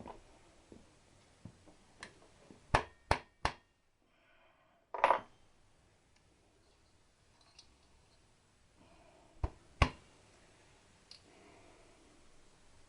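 Hand tools clicking and knocking against metal fittings and nuts as they are worked up: three sharp clicks in quick succession about three seconds in, a louder knock about two seconds later and two more clicks near the end.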